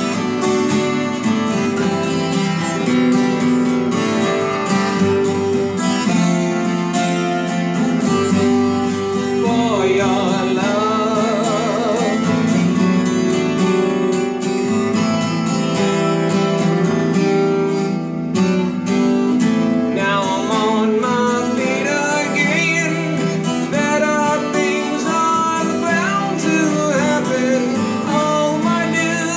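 Twelve-string acoustic guitar playing chords steadily through an instrumental break in a song.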